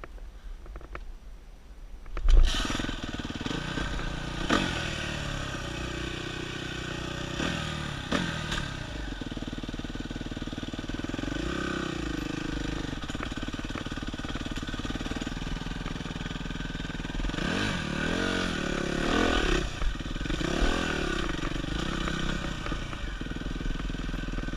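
Dirt bike engine starting suddenly about two seconds in, then running, its pitch rising and falling with several revs of the throttle.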